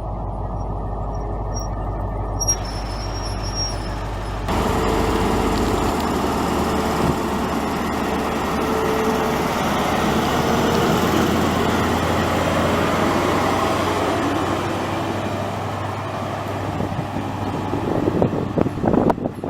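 A train at a main-line station: a steady low engine hum with a few thin high squeals, then about four seconds in a sudden, louder rush of rolling noise with a steady tone as a train moves through, and a run of rapid clicks near the end.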